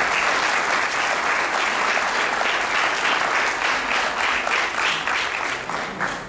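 Audience applauding: a steady crowd of hand claps that begins to thin out and fade near the end.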